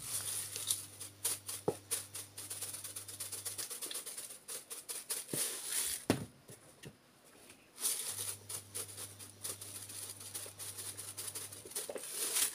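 Dried thyme shaken out of a plastic spice jar through its shaker lid: fast rattling in two long spells, the second starting about eight seconds in, with a few sharper clicks between them.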